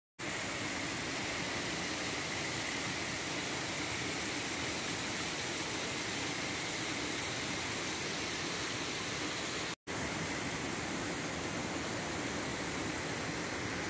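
Mountain creek rushing and cascading over rocks, a steady, even rush of water that cuts out for an instant about ten seconds in.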